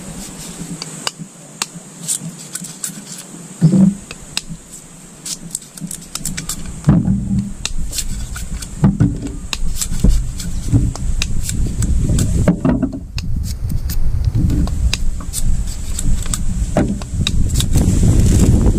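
A knife whittling a length of bamboo: irregular scraping and clicking strokes as the blade shaves the cane. Wind rumbles on the microphone through the second half.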